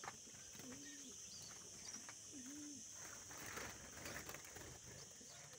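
Faint low cooing of a dove, two short coos a couple of seconds apart, with a few soft chirps from small birds.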